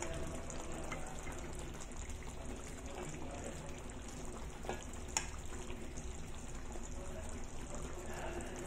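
Fried fish in sambal sauce simmering in a stainless steel wok, a steady sizzling hiss. A spoon clinks against the pan twice about five seconds in.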